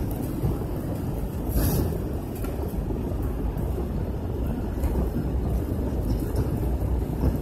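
Steady low rumble of a jet airliner's cabin on approach to landing: engine and airflow noise heard from inside the cabin.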